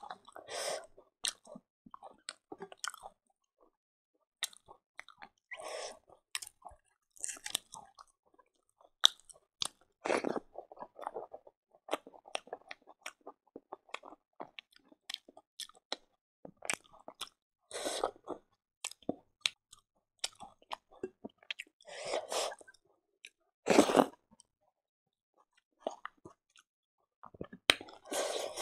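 A person chewing and crunching a meal of fried silkworms and rice, eaten by hand: irregular crunches, wet mouth clicks and smacks, with a few louder bursts.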